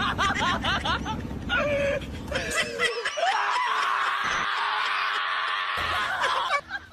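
Shiba Inu screaming while restrained and having its paw handled: short wavering cries, then from about three seconds in one long, high-pitched scream that cuts off near the end.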